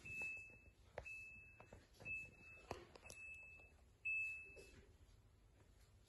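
BlitzHome countertop dishwasher's control panel beeping: five short beeps of one steady high pitch, about one a second, with a few faint clicks between, stopping about five seconds in.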